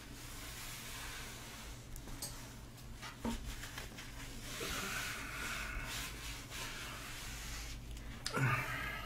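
Hands rubbing and smoothing a thin white sheet across a tabletop: soft rustling with a few light knocks, and a brief voice-like sound near the end.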